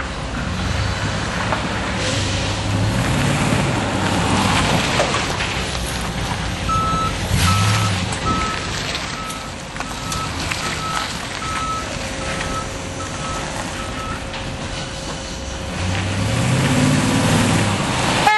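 Chevrolet Silverado 3500's 5.7L V8 running as the truck is driven, its pitch rising and falling as it picks up speed early and again near the end. In the middle a reversing alarm beeps about thirteen times, roughly one and a half beeps a second.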